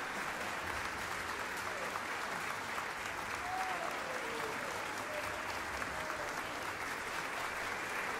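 Concert-hall audience applauding steadily, with a few faint voices calling out over the clapping.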